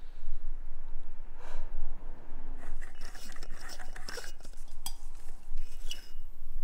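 Frosted glass lampshade of a desk lamp being handled, with small clinks and scrapes of glass against the lamp's fitting and the desk, busiest in the second half, and a sharp click near the end.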